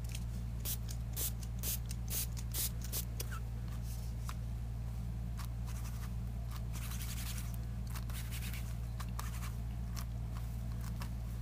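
Short hissy spritzes of water from a spray bottle, with the rustle and scrape of hands working wet seam-binding ribbon on a craft mat. A steady low electrical hum runs underneath.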